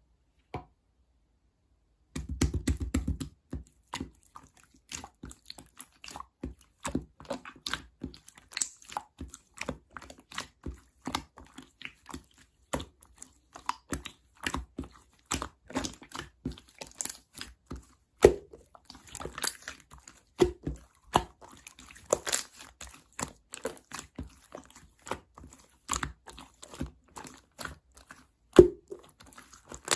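Soft, floppy slime being squeezed and stretched by hand, making irregular sticky clicks and small pops, several a second. It starts after about two seconds of silence with a brief low thump. A few pops about halfway through and near the end are louder than the rest.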